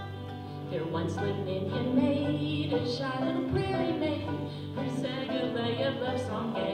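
Old-time string band music: acoustic guitar and banjo playing an old mountain tune, with a wavering lead melody line over the picking from about a second in.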